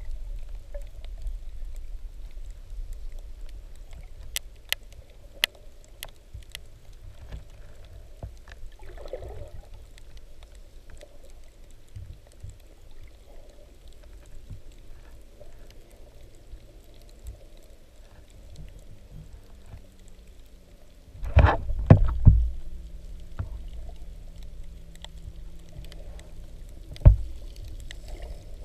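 Underwater ambience heard through a camera housing: a low steady rumble with scattered sharp clicks. A faint steady hum comes in about two-thirds of the way through, and there are two louder noisy bursts, one lasting about a second and a short one near the end.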